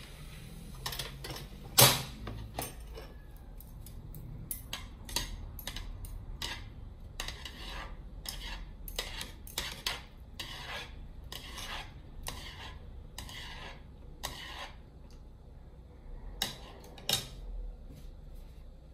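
Metal chopsticks clinking and scraping against a saucepan while stirring ramyun noodles as they cook. The knocks come in a quick, irregular run, the loudest about two seconds in, and thin out after about fourteen seconds to a last couple of taps.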